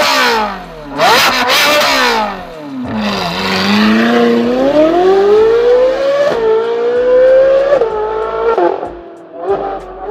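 Performance car engine and exhaust revving: a quick rev about a second in that falls away with crackling from the exhaust, then a long pull with the engine pitch climbing steadily, the revs dropping off about eight seconds in.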